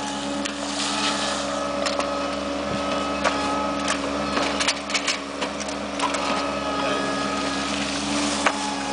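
Engine of a ride-on paving-stone laying machine running steadily, with sharp clacks of concrete paving stones knocking together as its clamp sets a layer down, most of them about halfway through.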